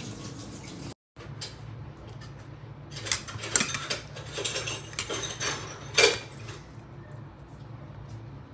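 Metal utensils clinking against a bowl and dishes, a scatter of sharp clinks with the loudest about six seconds in, over a faint steady hum.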